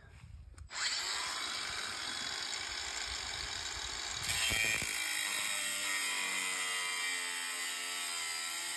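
Makita angle grinder starting up about a second in, then its cutting disc biting into a steel bar from about four seconds in: a steady grinding whine whose pitch wavers under the load of the cut.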